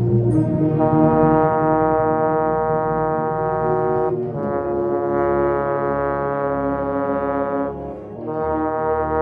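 Trombone playing long held notes in a slow passage, moving to a new note about four seconds in and again near the end.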